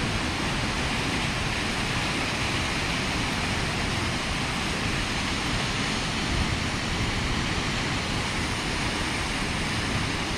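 Steady, even rushing of South Falls, a tall waterfall.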